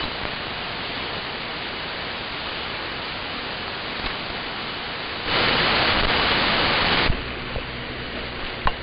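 Steady static hiss of an empty 40-metre AM channel through a shortwave receiver, with no reply to the CQ call. A louder rush of hiss lasts about two seconds past the middle, and a sharp click comes near the end.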